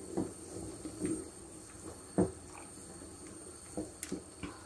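Faint, scattered small clicks and knocks of kitchen handling, the loudest about two seconds in.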